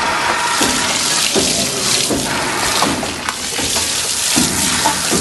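Water pouring and splashing steadily, with small irregular splashes.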